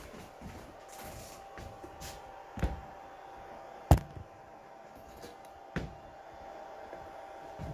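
Three sharp knocks, irregularly spaced, the middle one the loudest, over a faint steady hum.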